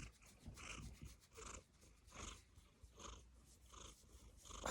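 Domestic cat making soft, breathy sounds in a steady rhythm, about six in a row, while having her head scratched. These are the funny whimpering noises she makes when she gets her head scratched.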